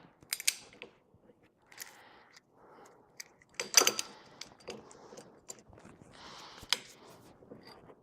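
Steel hand tools clinking and clanking on metal as pliers are worked onto a rusty U-joint bearing cap, with a cluster of sharp knocks about four seconds in and one more just before seven seconds, and light scraping between.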